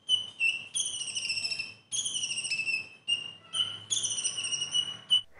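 Caged male van Hasselt's sunbird (kolibri ninja) singing: a run of high, thin whistled phrases, each falling slightly in pitch. The phrases are broken by short gaps, and two or three of them last about a second each.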